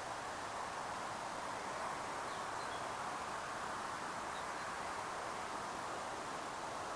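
Steady hiss of outdoor background noise with no motor whine, with a few faint high bird chirps a couple of times around the middle.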